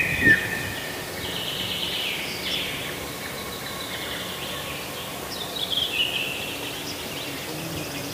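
Small songbirds chirping and trilling in a reedbed, with a busy spell of calls over the first few seconds and another burst about six seconds in. A short low thump sounds just after the start.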